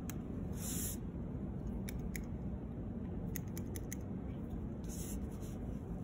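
Pencil on paper and paper being handled: two short scratchy strokes, about half a second in and about five seconds in, and a few light ticks in between, over a steady low background hum.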